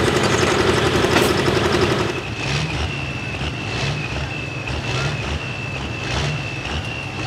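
Diesel engines of 466-class hot farm pulling tractors. One runs loudly and steadily for the first two seconds. Then a quieter one idles, its low note swelling roughly once a second, with a thin steady high whine over it.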